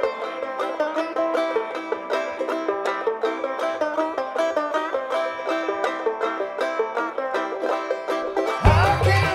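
An upbeat tune of fast, evenly paced plucked-string picking. Near the end it cuts suddenly to a different song with a heavy low beat.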